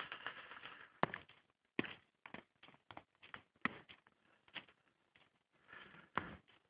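Faint, irregular crunching clicks of footsteps in fresh snow, a few tenths of a second to a second apart, with a short pause in the middle.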